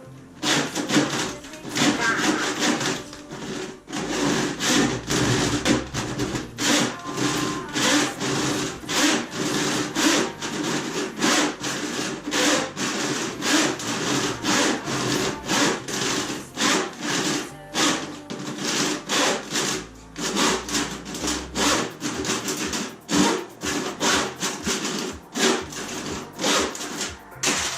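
A saw cutting with quick, uneven back-and-forth strokes, a few a second, a rough rasping sound that stops near the end.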